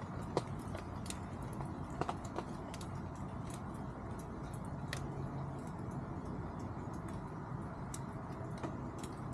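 Chickens pecking and scratching at feed: scattered, irregular light taps and ticks, the sharpest about half a second and two seconds in, over a steady low background noise.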